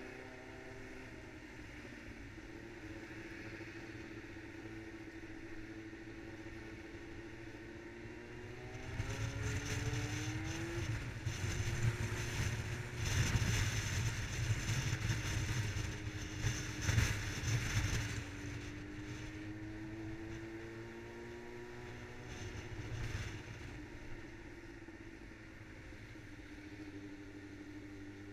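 Yamaha R6 sportbike's inline-four engine running at a steady cruise. About a third of the way in it speeds up, rising in pitch and dropping back at a gear change, with a stretch of loud wind and road noise. The engine then eases off and picks up again near the end.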